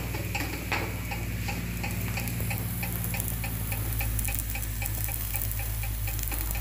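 Melwi flatbread cooking on a hot pan: a steady low hum with a fast, even ticking.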